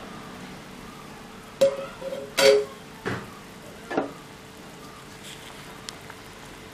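Sambar boiling hard in an open aluminium pressure cooker, a steady bubbling hiss. Between about one and a half and four seconds in, a handful of sharp metal clanks ring out, the loudest in the middle.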